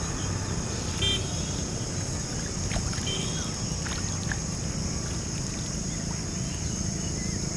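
Rural pondside ambience: a steady high-pitched drone over a low rumble, with a few short chirps about a second in and again around three seconds in.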